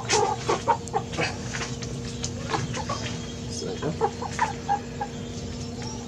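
Young chickens clucking, a quick run of short calls in the first couple of seconds and then scattered ones, over a steady low hum.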